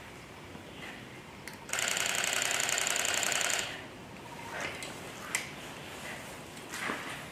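A camcorder's zoom motor whirring for about two seconds as the lens zooms out, a steady mechanical buzz that starts and stops abruptly.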